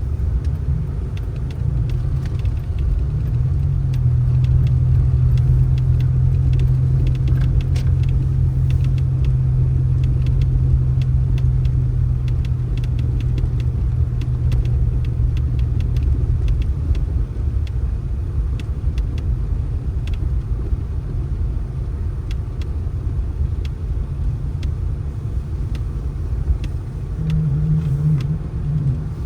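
A motor vehicle running: a constant low rumble, with a steady low drone for roughly the first half and many faint scattered clicks over it.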